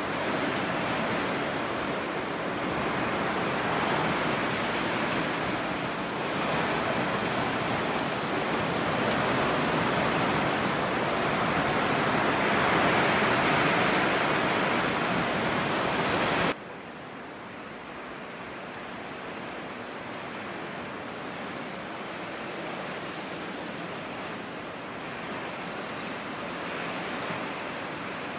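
Heavy typhoon rain pouring down, a steady dense hiss. A little over halfway through it drops abruptly to a quieter, duller level.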